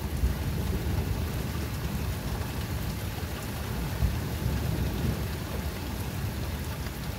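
Steady rain falling, with a low rumble of thunder running underneath it.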